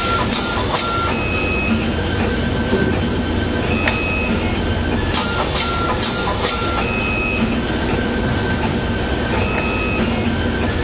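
Automatic wire cutting, stripping and bending machine working through its cycles: its motors give short steady whines that repeat every couple of seconds as the wire feeds, with clusters of sharp mechanical clicks from the cutting and bending heads, over a steady mechanical noise.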